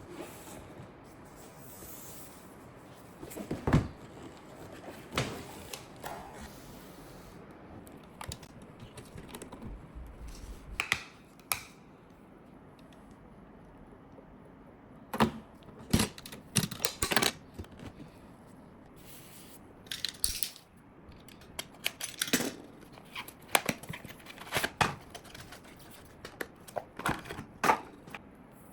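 Irregular clicks, taps and light rattles of computer parts being handled and fitted together during a PC build, some single and some in quick clusters.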